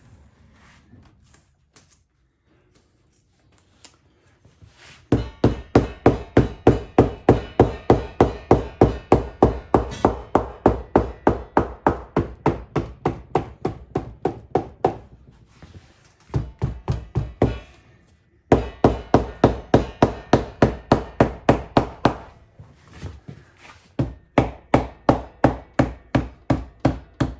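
Hammer tapping rapidly and evenly, about three blows a second, on the wet leather seat of a saddle being fitted. The blows come in several long runs with short breaks.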